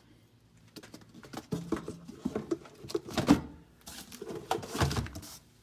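Battery-box mock-up being handled and set into a riding mower's battery compartment: a string of irregular knocks and scrapes, the loudest about three seconds in, with a heavier thump near the end as it settles in place.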